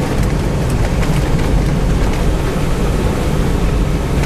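Steady in-cab rumble of a Land Rover Defender 110 driving along a wet, muddy dirt track: engine and tyre noise with no letting up, and a few faint ticks.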